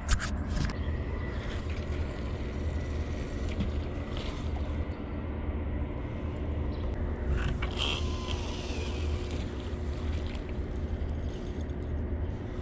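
Steady low rumble with a faint steady hum, broken by a few light clicks and rustles.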